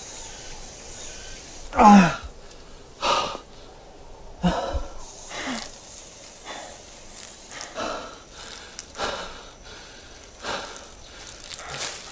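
A man breathing hard and raggedly, one heavy breath roughly every second. The first, about two seconds in, is the loudest and carries a groan that falls in pitch.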